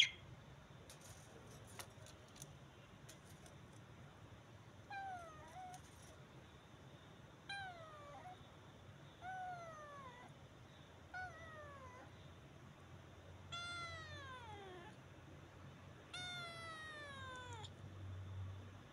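Kitten meowing six times, each meow sliding down in pitch, the last two longer and drawn out. A sharp click right at the start is the loudest sound.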